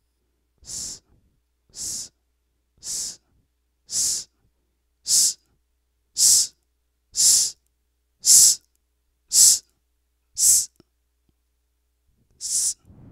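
A man's voice hissing short "sss" sounds into a dynamic microphone through a Soundcraft EFX8 mixer, eleven times at about one a second, while the channel's high-frequency EQ knob is turned. The hisses grow louder through the first two-thirds, and there is a short pause before the last one.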